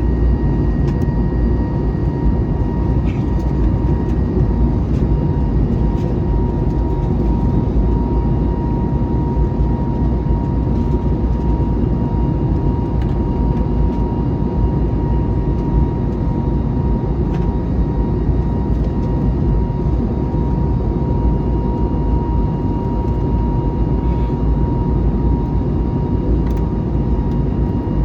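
Steady cabin noise inside an Airbus A321neo in flight: a constant rushing of engines and airflow, with a steady hum on top.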